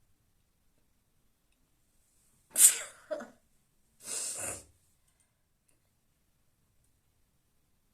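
A woman sneezes once, sharply and loudly, about two and a half seconds in, with a short catch just after. About a second later comes a longer, breathy burst of air.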